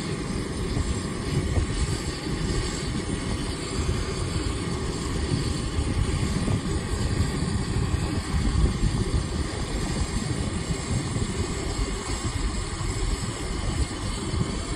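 Distant Airbus A380 jet flying over, its four Engine Alliance GP7200 turbofans heard from the ground as a low, uneven rumble.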